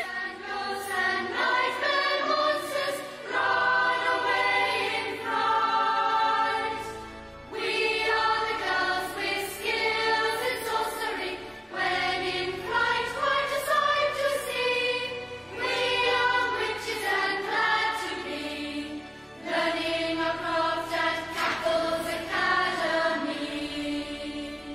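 End-credits theme song: music with voices singing together, fading out at the end.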